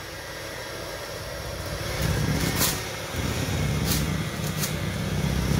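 Electric mixer running in spurts, its motor humming low as it beats stiff sugar cookie dough. It starts up about two seconds in, drops off briefly, then runs again, with a few sharp clicks along the way.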